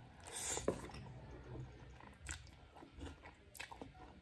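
A person eating noodles with a fork: a short slurp about half a second in, then soft wet chewing with small clicks.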